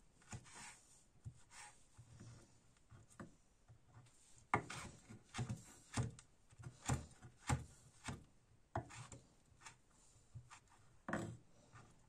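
Chef's knife slicing a green vegetable on a wooden chopping board: a run of short knocks as the blade meets the wood. They are soft at first and grow louder and steadier from about four seconds in, roughly one to two a second.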